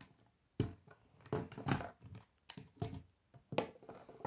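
Lego pieces handled on a wooden tabletop: a series of separate plastic clicks and knocks as parts are pulled off and rubber tyres are set down.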